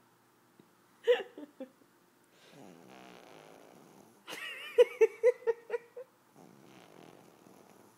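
Pug puppy snoring softly in its sleep, with a short snort about a second in and a louder run of quick snorts and snuffles just past the middle.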